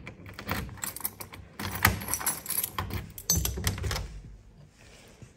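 A bunch of keys jangling and a key rattling in a door lock as it is turned, with dense clicks that stop about four seconds in.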